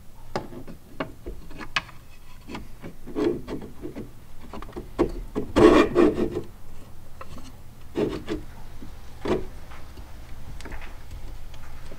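Platform cover panel being worked down into its channel, the T-nuts on its back sliding in a tight fit: a string of scrapes, rubs and small knocks, with the longest, loudest scrape about halfway through.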